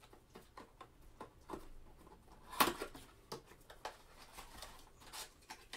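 Light rustles and small clicks of a cardboard trading-card blaster box being handled and opened, with one louder snap about two and a half seconds in.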